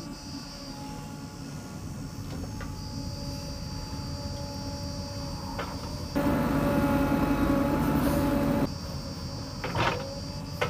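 Diesel engines of a JCB 3DX backhoe loader and a Mahindra tractor running at a dig site, with a steady high insect buzz above them. About six seconds in, a much louder rushing noise comes in, lasts some two and a half seconds and cuts off abruptly.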